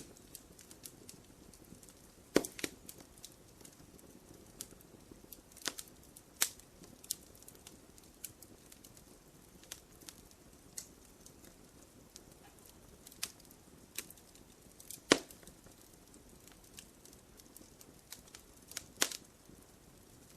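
Wood fire crackling in a fireplace: irregular sharp pops and snaps over a low steady hiss, the loudest pops a little over two seconds in, about fifteen seconds in, and near the end.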